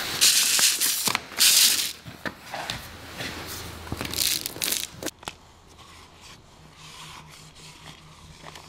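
SIGA Fentrim 20 airtight adhesive tape ripping twice as it is peeled and pressed onto a wall, followed by softer crinkling and scraping of the tape and its release paper and a few sharp clicks about five seconds in.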